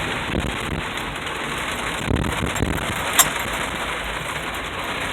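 Heavy rain falling steadily on a car's roof and body, heard from inside the car, with a single sharp click about three seconds in.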